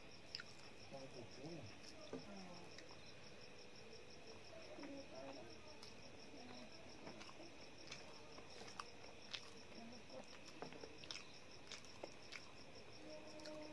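Crickets chirping steadily in the background, a faint, rapidly pulsing high trill, with scattered faint clicks as fingers mix rice on a steel plate.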